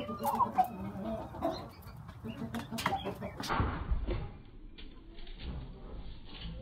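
Rooster clucking in short low calls, with a few sharp knocks, during the first half; after that mostly a low rumble of handling noise on the microphone.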